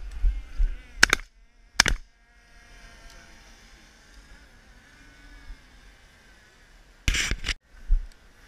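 Two shotgun shots about a second and two seconds in, fired at a flushed pheasant, followed by a longer bang about seven seconds in.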